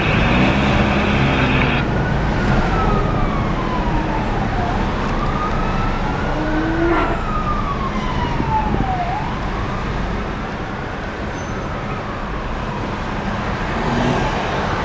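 An emergency vehicle's siren in wail mode, sliding slowly up and down in pitch, each rise or fall taking about two to three seconds, and growing fainter near the end. It is heard from inside a car in slow traffic, over steady road and engine noise.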